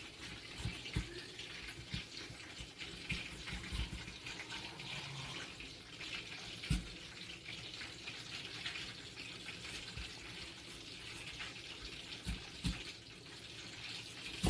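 Serrated kitchen knife sawing through a green apple, a scratchy crunching rasp, with several sharp knocks of the knife or apple against a bamboo cutting board, the loudest about halfway through.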